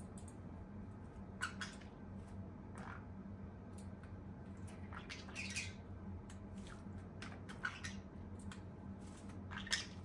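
Green-cheeked conure eating from a stainless steel bowl: scattered short crunches and beak clicks against the metal, the loudest near the end, over a steady low hum.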